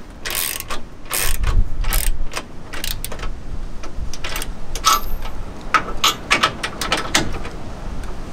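Hand ratchet wrench clicking in short, irregular runs as bolts are tightened down on a metal step bracket.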